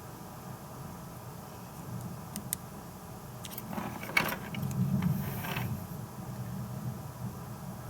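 Handling of a small circuit board and LCD with its ribbon cable: a few light clicks and a brief rustle about halfway through, over a steady low hum.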